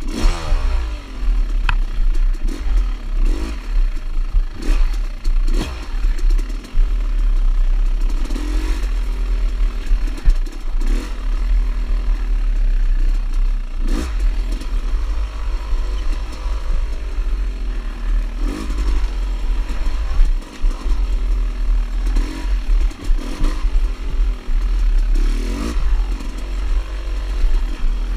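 Dirt bike engine revving up and down over and over as the throttle is worked on a tight wooded trail, with short knocks and clatter from the bike hitting bumps. A heavy low rumble of wind buffets the bike-mounted microphone throughout.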